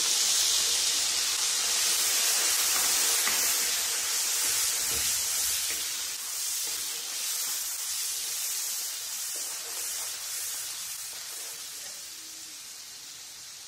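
Tomato purée hitting hot mustard oil in a kadhai: a steady frying sizzle, loudest as it goes in and gradually dying down as the wet purée cools the oil.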